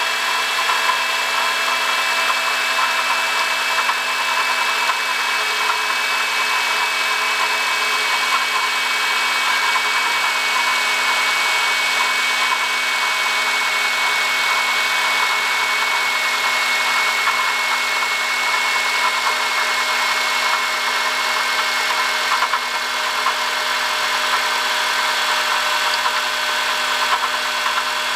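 Honda Odyssey engine running with a steady whine, several high tones over a rough mechanical rasp, from a failing water pump.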